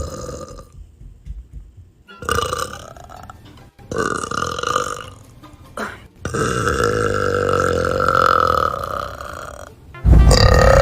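Young women burping in a run of separate belches: two of about a second each, a brief one, then one long drawn-out belch of about three and a half seconds. A louder, deeper burp starts abruptly near the end.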